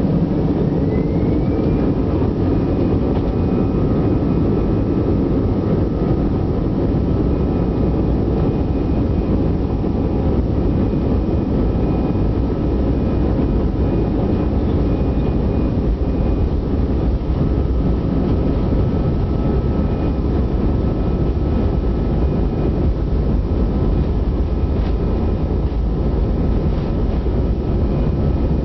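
Airbus A320-200's jet engines heard from inside the passenger cabin while taxiing: a steady low rumble and hiss with a high whine that rises in pitch over the first couple of seconds, then holds steady.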